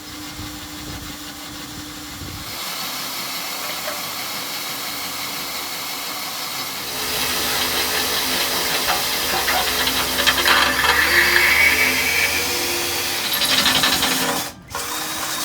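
Electric drill boring a 7/16-inch hole through steel channel, running steadily under load and getting louder partway through, with a brief stop near the end.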